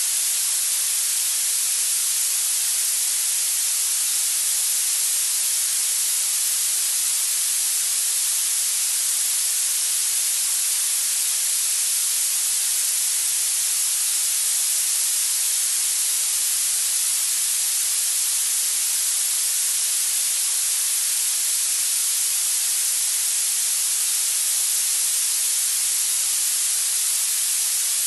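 Steady, unchanging hiss of synthetic noise, strongest in the treble, played as a tinnitus-masking sound for habituation therapy.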